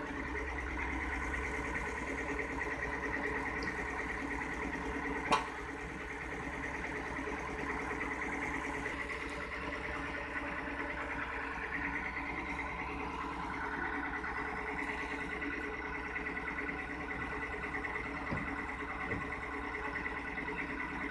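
Kato crawler excavator's diesel engine running steadily with a high whine, and a single sharp click about five seconds in.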